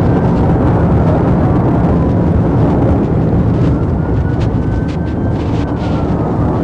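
Police cruiser's engine and tyre noise at high speed, heard inside the cabin as a loud, steady rumble. A faint siren tone slowly rises and falls over it, and a few sharp clicks come about four to five seconds in.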